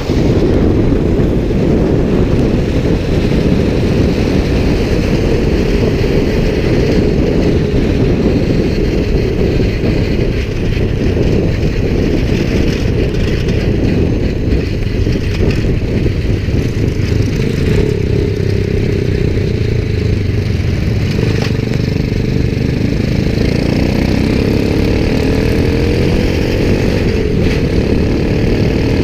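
Motorcycle engine running under way with heavy wind noise on the microphone; the engine's pitch rises in the last several seconds as it accelerates.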